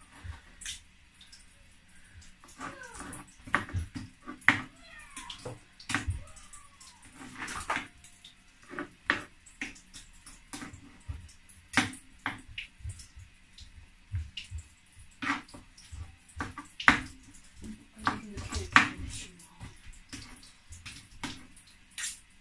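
Kitchen knife cutting cooked chicken off the bone on a wooden chopping board, making irregular sharp knocks and taps about once a second.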